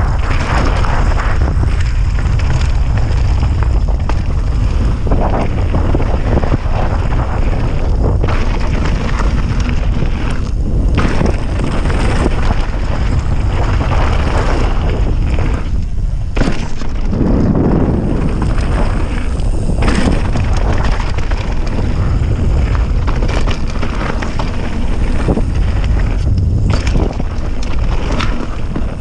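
Wind buffeting the microphone of a handlebar-mounted GoPro as a Scott mountain bike rides fast down a dirt singletrack, with tyre rumble and short rattles and knocks from the bike over bumps in the trail.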